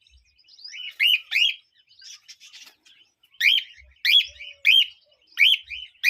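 Cockatiel chirping: short, loud calls that rise and fall in pitch, coming in clusters of two or three with brief pauses between them.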